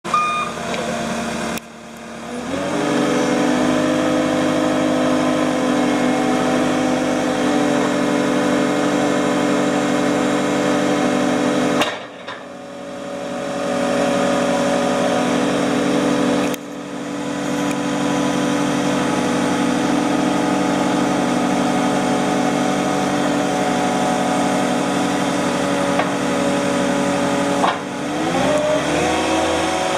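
CAT 242D skid steer loader's diesel engine running at high revs. It climbs to a steady pitch soon after the start, drops off suddenly twice and winds back up each time, and near the end the pitch swings down and back up.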